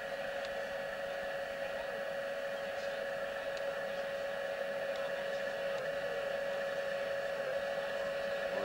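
Steady mechanical hum at an even pitch, one constant tone with fainter higher ones over a light hiss, like engine or equipment noise on an old broadcast sound track.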